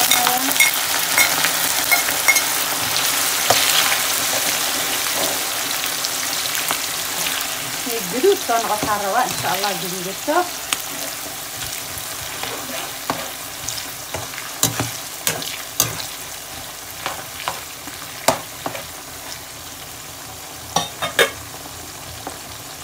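Sliced red onions frying in hot oil in a wok, a dense sizzle that is loud as they go in and fades steadily. A metal spatula stirring them gives scattered scrapes and taps against the pan.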